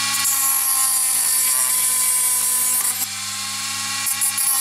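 Dremel rotary tool running at speed with a cutting disc, grinding into hard grey plastic: a steady motor whine with a hissy cutting sound over it that drops away about three seconds in and comes back near the end as the disc is eased on and off the plastic.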